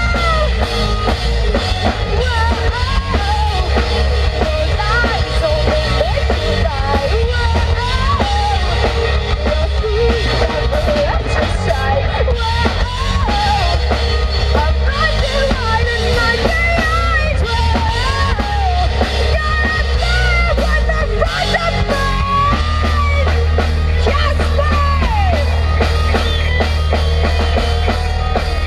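A live rock band playing loudly through a PA: drum kit, electric guitar and bass, with a singer's voice wavering above.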